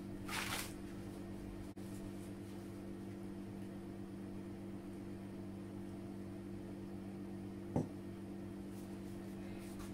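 Steady low hum throughout, with a brief rustle of corn husk being stripped from an ear just after the start and a single short knock near the end.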